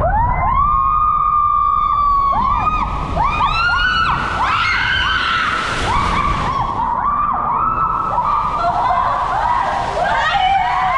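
Women screaming as they ride a tube down an enclosed water slide: one long held scream about half a second in, then many short rising-and-falling screams overlapping one another. Under them is a steady low rush of water.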